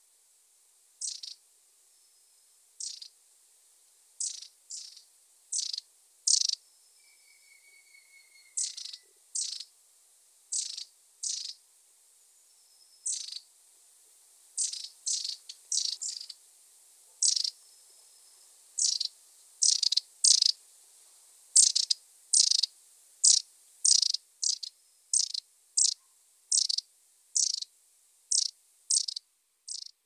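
Long-tailed tits calling: a long series of short, high, thin call notes, about one or two a second, coming closer together and louder in the second half. A faint thin whistle and a short falling trill are heard about a quarter of the way in.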